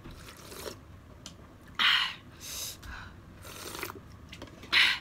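Close-up eating sounds: chewing, broken by a few short noisy bursts, the loudest about two seconds in and again near the end.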